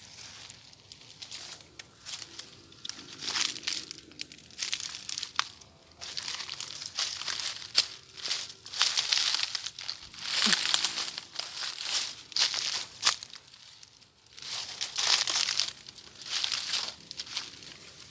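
Leaves rustling and crinkling in irregular bursts of about a second each, with small snaps and crackles in between.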